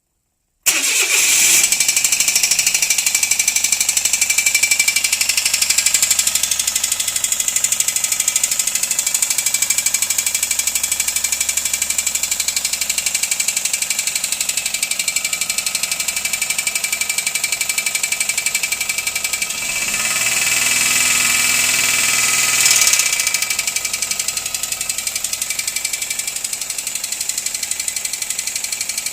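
Suzuki K6A turbocharged three-cylinder engine running with a steady high-pitched whine: an abnormal turbo noise. It is revved once about 20 seconds in and drops back to idle about three seconds later.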